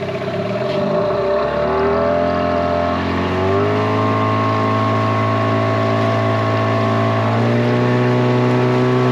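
Hidea 15 hp outboard motor on an inflatable boat running under way. Its pitch climbs as it is throttled up over a couple of seconds, holds steady, then drops a little as the throttle is eased back near the end.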